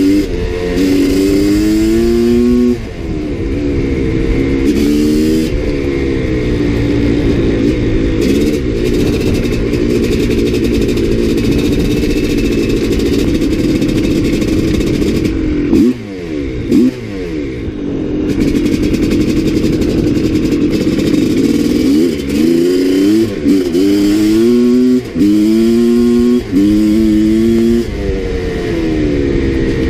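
Maico 660 two-stroke single-cylinder dirt bike engine under load, its pitch climbing and dropping again and again as the rider accelerates and shifts through the gears, with wind rushing over the microphone. About sixteen seconds in the throttle is chopped briefly before it pulls again.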